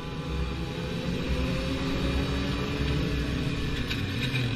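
Sport motorcycle engines running as a group rides together, heard from the rider's own bike; the engine note climbs slowly as it speeds up. A short rattle of clicks comes near the end.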